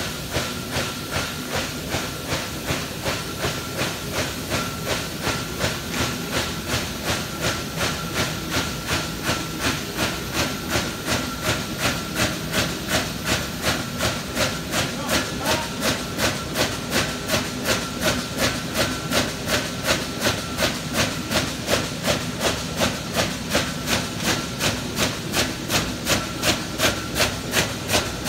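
Robinette Model 3300 HSU paper tuber running: a steady machine hum and a thin steady whine, with a regular pulse of noise about two and a half times a second as the machine cycles. The beat becomes sharper after about ten seconds.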